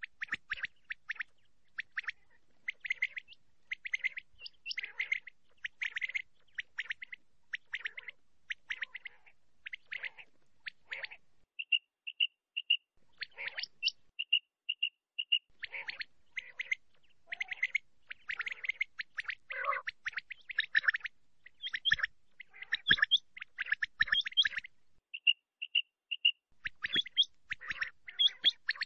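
Male common quail (batair) calling: rapid runs of sharp chirps, broken a few times by short phrases of three or four clear whistled notes.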